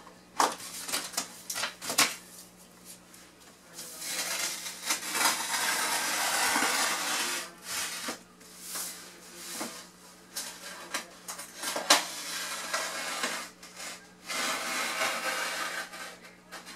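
A roll of white floor underlayment being unrolled across the subfloor and pressed flat by hand: rustling and scraping of the sheet, with scattered light clicks and taps in the first few seconds.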